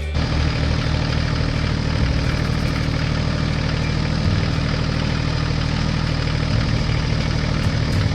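A heavy vehicle's engine running steadily at a low, even pitch.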